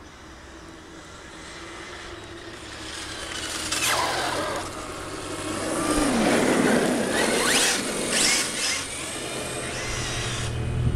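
Radio-controlled car driven fast over asphalt, its motor whine rising and falling in pitch as it passes close, with tyre noise. It comes through loudest twice: briefly about four seconds in, and again over a couple of seconds past the middle.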